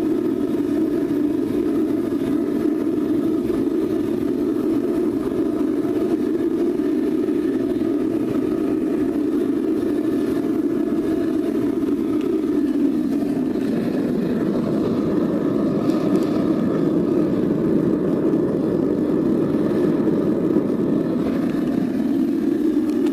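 Homemade forced-air foundry burner running on propane, loud and steady: flame and blower air together.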